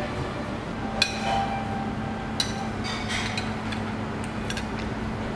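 Tableware clinking: two sharp china-or-glass clinks with a short ringing, about a second and a half apart, then a few lighter taps, over steady room noise.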